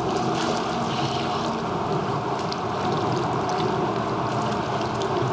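Steady water noise: water lapping and sloshing around a kayak near bridge pilings, with scattered small ticks.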